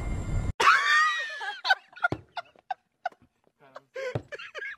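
A shrill, gliding shriek, then a rapid choppy cackle, as the Green Goblin swoops in on his glider. A low rumble cuts off abruptly just before the shriek.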